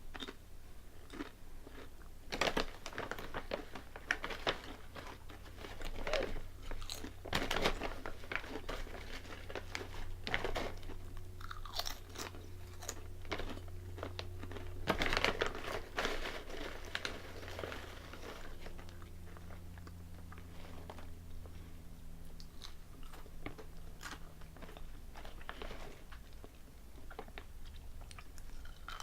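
A person crunching and chewing Calbee Honey Butter potato chips, with irregular sharp crunches through the whole stretch.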